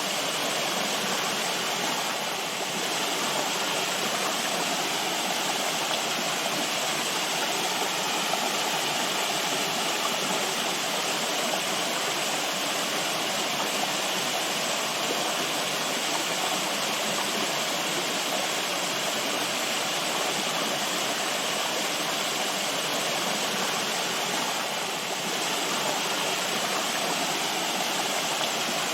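Flowing water, a stream or small waterfall, rushing steadily.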